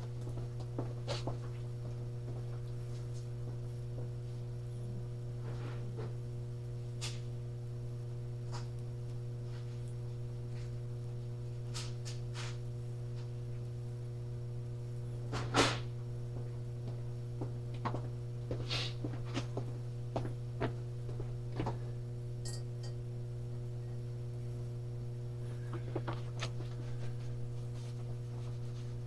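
Steady electrical hum with several pitches, with scattered faint clicks and knocks and one louder knock about halfway through.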